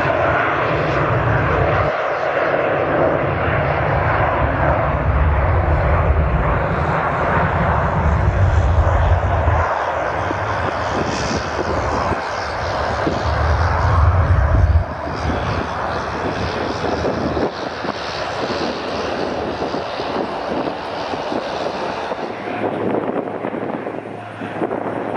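Jet airliner engines running loudly: a steady rush with a heavy low rumble that drops in level about fifteen seconds in and then thins out toward the end.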